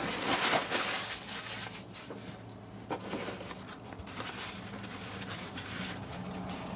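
Tissue paper rustling and crinkling as it is pulled from a cardboard box and crumpled in the hands, loudest in the first second or so.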